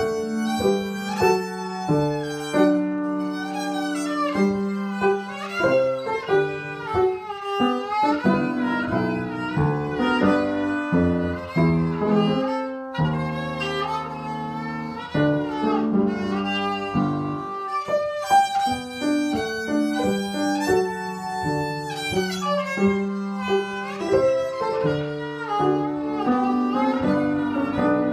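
A child playing a minuet on the violin, bowing a continuous run of notes that change about every half second, on his first try at the piece.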